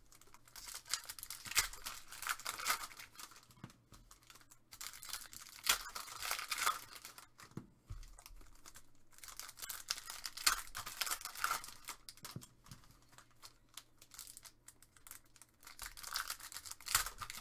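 Trading-card pack wrappers crinkling and tearing open while cards are handled, in irregular bursts of rustling.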